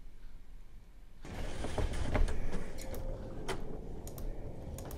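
Creaking and crunching from a sled ride over snow, played back from a video clip; it starts about a second in, with a few sharp clicks.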